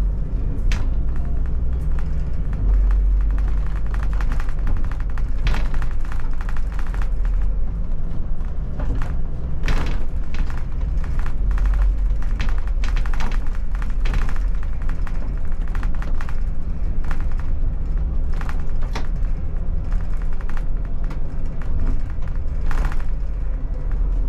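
Inside the cab of an Iveco Irisbus Crossway bus on the move: a steady deep engine and road rumble, broken by frequent sharp knocks and rattles as the bus goes over the uneven street.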